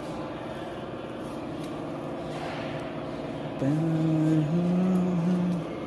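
A vehicle engine running steadily. About three and a half seconds in, a louder held tone sounds for about two seconds, stepping up in pitch, then stops.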